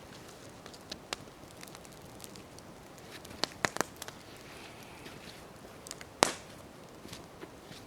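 Wood campfire crackling: sharp pops and snaps scattered over a soft steady hiss, three close together a little past three seconds in and the loudest single pop about six seconds in.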